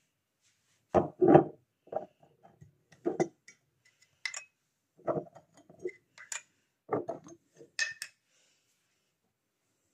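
Glassware and kitchen utensils being handled on a worktop: irregular clinks and knocks, a few with a short glassy ring.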